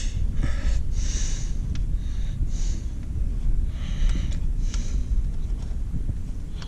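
Several short breathy rushes of noise, like breathing close to the microphone, over a low rumble, with a few faint clicks from the Allen key being worked on the foot-peg bracket bolts.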